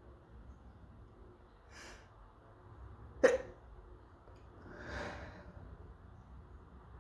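A sneeze: a quick breath in, then about three seconds in one short, sharp, loud sneeze, followed near five seconds by a softer, longer breathy sound.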